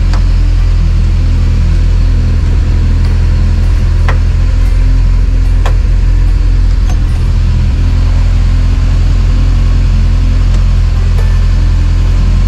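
Volkswagen Type 2 bus's air-cooled flat-four engine idling steadily, heard from inside the cab, with a couple of light clicks about four and six seconds in.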